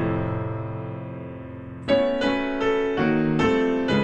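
Piano playing: a chord rings and slowly fades, then about two seconds in a quick run of struck chords comes in, roughly three a second.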